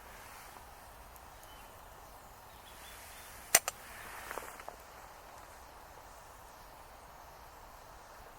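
A single sharp click or snap about three and a half seconds in, with a smaller one right after and a few light clicks and rustles following, over a faint steady outdoor background.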